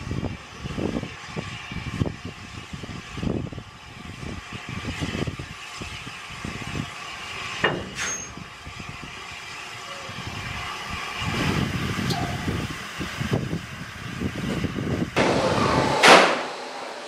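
SR U class 2-6-0 steam locomotive No.1638 moving off slowly, its exhaust beating in a steady rhythm with steam escaping around the cylinders. A brief loud noise comes near the end.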